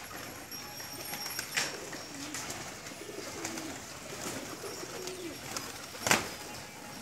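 Flock of domestic pigeons cooing, with low wavering coos through the middle, scattered sharp clicks and wing flaps, and one loud sharp knock about six seconds in.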